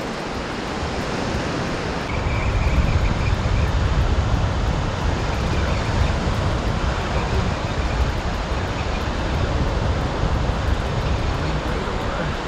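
Surf washing onto the beach with wind buffeting the microphone: a steady noisy rush with a heavy low rumble that grows stronger about two seconds in.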